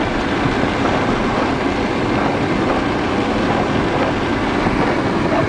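Steady noise inside a car's cabin on a road under floodwater: engine running and tyres through standing water, with rain on the windscreen.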